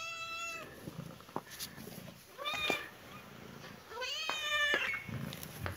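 Domestic cat meowing three times: a long meow that ends about half a second in, a short one near the middle and another towards the end.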